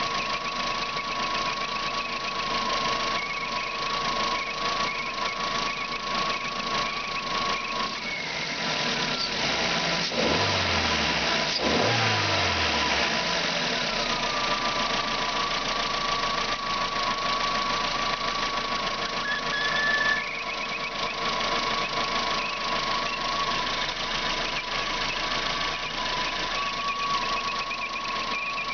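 Lifan Solano engine running with a steady high whistle, which the owner puts down to a failing water pump after checking with the belts removed. The whistle drops out for several seconds around two short revs in the middle, then slides back down onto the same pitch and holds.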